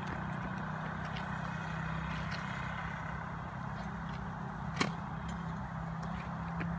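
Small quad ATV engine running steadily, a low hum, with a few sharp clicks, the loudest about five seconds in.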